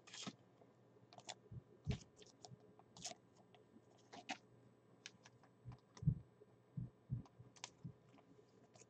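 Trading cards being handled on a table: scattered faint clicks and light taps, with a few soft thumps.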